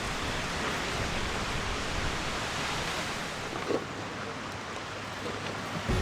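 Strong wind blowing hard across the campsite: a steady rushing noise.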